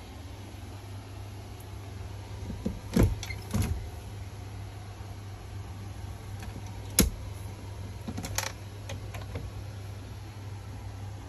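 A steady low mechanical hum with a few sharp knocks and clicks: two close together about three seconds in, a single sharp one about seven seconds in, and a smaller cluster a little after eight seconds.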